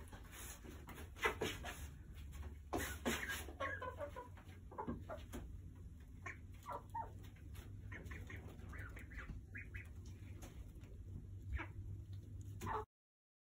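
Young hens clucking with many short calls, mixed with a few sharp knocks over a steady low hum. The sound cuts off suddenly near the end.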